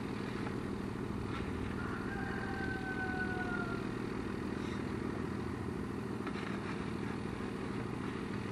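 A steady low, engine-like hum. A short high whistle slides slightly downward between about two and four seconds in, and there are a few faint knocks.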